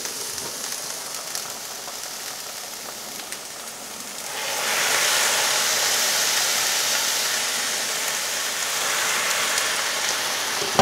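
Food frying in a pan, sizzling steadily. The sizzle grows much louder about four seconds in and stays loud.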